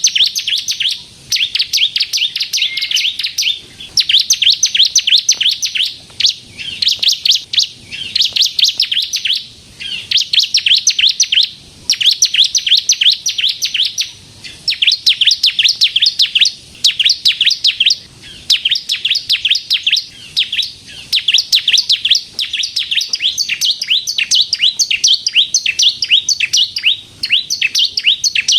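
Bar-winged prinia (ciblek kristal) singing in rapid trills: bursts of quick, sharp, high chipping notes a second or two long, separated by short pauses, over and over.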